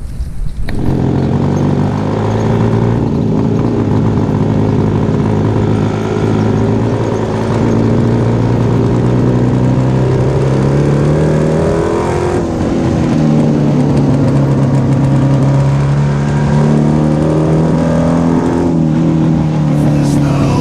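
Old Jawa and ČZ two-stroke motorcycle engines running on the move, their note dropping and rising again with the revs about twelve seconds in and again near the end.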